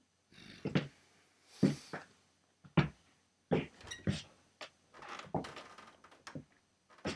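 Foley sound effects: a run of separate thuds and rustles at irregular intervals, with a short hiss about two seconds in.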